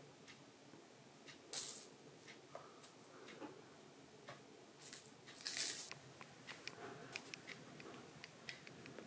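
Fabric rustling and light scratching as kittens move and paw on a fleece blanket: short rustles about a second and a half in and again around five to six seconds, then a run of small, quick clicks and ticks.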